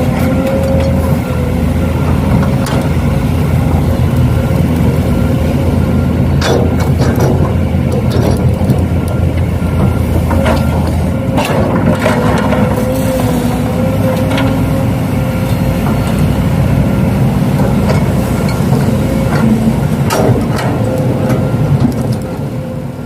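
Truck engine running steadily at a low, even idle, with a few sharp clicks and knocks over it; the sound fades out near the end.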